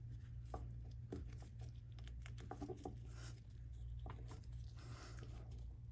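Faint scattered rubbing and light clicks of gloved fingers working a new square rubber O-ring around the edge of a Bodine right-angle motor's end housing, over a steady low hum.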